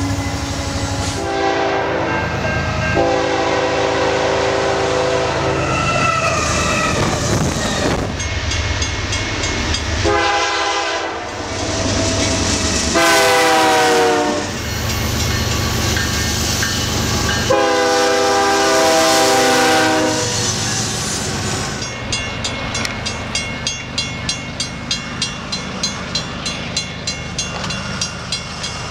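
Canadian National diesel freight locomotives sounding their multi-chime air horns in several blasts, one dropping in pitch as the locomotive passes, over the rumble of engines and rolling cars. In the last third a level-crossing warning bell rings steadily at about two strikes a second.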